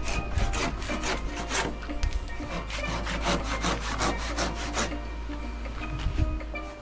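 Hand saw cutting through a wooden board in quick, even back-and-forth strokes, stopping about five seconds in; it is finishing the cut of a fishtail lock joint by hand. Radio music plays faintly underneath.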